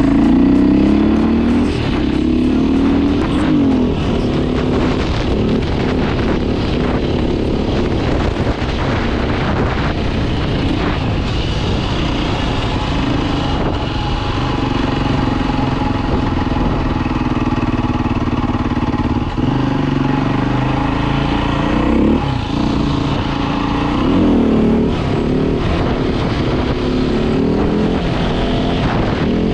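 Beta RR 450 enduro bike's four-stroke single-cylinder engine running under way. It revs up in several rising sweeps near the start and again near the end, with steadier cruising between.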